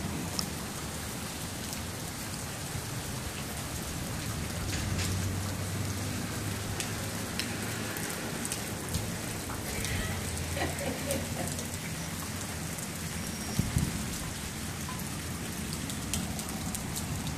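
Steady rain falling, with scattered sharp drip ticks and a faint low rumble a few seconds in.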